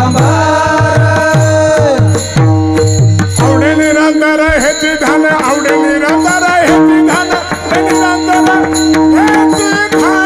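Devotional kirtan singing: a voice holding long, wavering notes over a steady drone, with low hand-drum strokes during the first four seconds.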